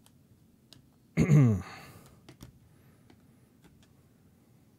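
A man sighs once, loud and short, about a second in, with his voice falling in pitch. A few faint clicks follow, from the baseball cards and plastic card holders being handled.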